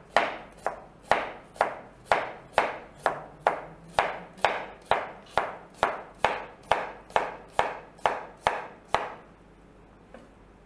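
Chef's knife slicing a red onion into thin slices on a cutting board: a steady knock of the blade on the board about twice a second. The slicing stops near the end.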